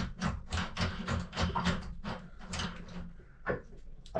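A spanner working a nut down the threaded rod of a pipe clamp: a quick run of short metallic scraping clicks, about four a second. It stops about three seconds in, and a single knock follows.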